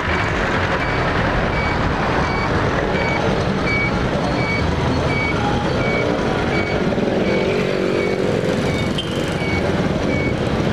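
Street traffic, with vehicles passing close by, under a short high electronic beep that repeats evenly about twice a second throughout.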